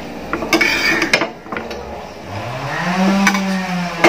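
Metal tongs clicking and scraping against a cast iron frying pan as fried, breaded bread slices are lifted out of the oil. From about halfway through, a long low tone rises in pitch and then holds for about two seconds.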